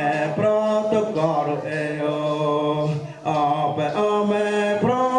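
Male voices chanting a Wajãpi song in long held notes, with a short break about three seconds in.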